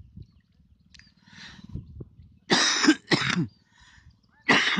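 A man coughing three times: two coughs close together about halfway through, and a third near the end.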